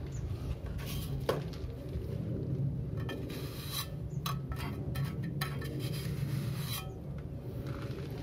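Plastering trowel scraping and tapping on wet cement, a string of short scrapes and clinks, over a steady low hum.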